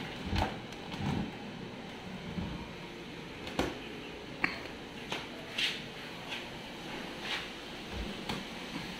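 Irregular light clicks and knocks, roughly one a second, over a steady low hiss: movement and handling noise while someone moves around a wooden cabinet.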